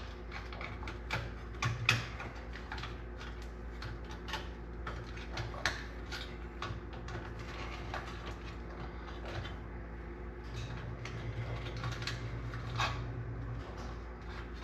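Light plastic clicks and taps from wires being tucked and pressed into a pot light's small plastic junction box, scattered irregularly over a steady low hum.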